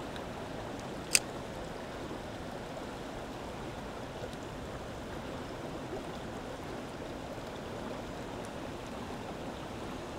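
Small mountain stream flowing steadily, with one sharp click about a second in.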